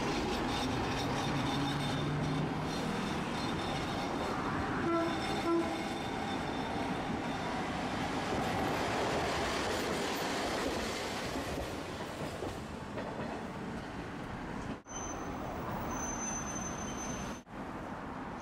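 Tosaden streetcar running on its rails: a steady rumble of wheels and running gear. About five seconds in come two short tone signals, and the noise drops out briefly twice near the end.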